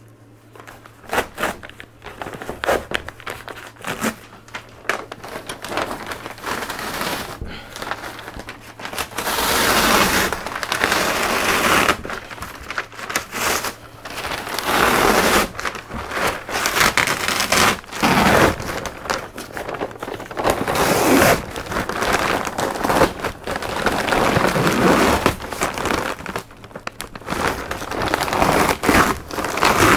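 Peel ply being pulled off cured epoxy-and-fiberglass laminate and bunched up by hand: an irregular tearing and crinkling rustle of the release fabric. It gets louder and busier about a third of the way in.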